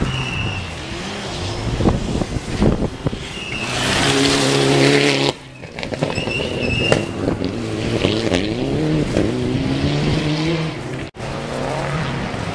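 Rally car engine revving hard as the car approaches and passes close by on a gravel stage, the revs rising and falling, loudest about four to five seconds in.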